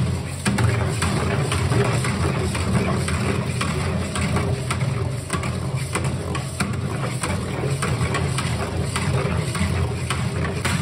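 A long metal rod stirring thick cream in a large stainless steel pot, with frequent clicks and scrapes against the steel, over a steady low machine hum.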